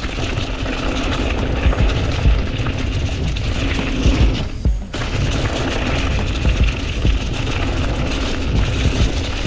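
Mountain bike going fast down a rough dirt trail: tyres rumbling and chattering over the ground, with wind buffeting the microphone. The noise dips briefly about five seconds in.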